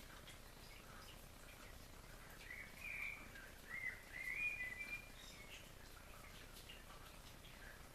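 Small birds chirping and singing over a faint steady background hiss, with a louder run of quick, gliding chirps from about two and a half to five seconds in.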